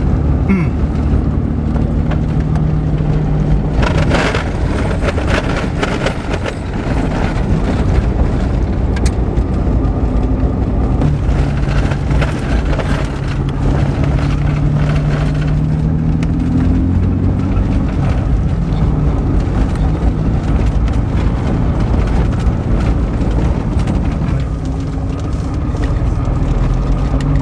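A car driving on a dirt track, its engine running steadily with the engine note rising and falling. There is a stretch of louder rattling and road noise about four to seven seconds in.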